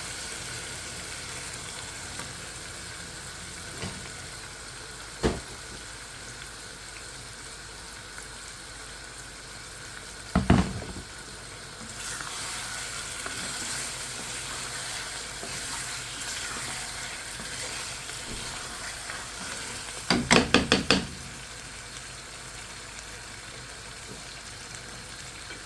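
Eggs and potato sizzling in hot spiced oil in a cooking pot, a steady hiss that grows a little stronger about halfway through. A few sharp knocks break it: a single one, a louder one near the middle, and a quick run of about six near the end.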